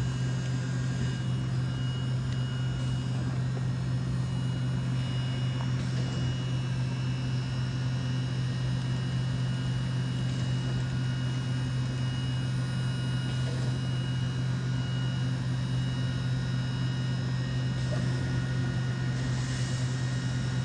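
DVF 5000 five-axis CNC machining centre running steadily: a constant low hum with a thin high whine that comes and goes.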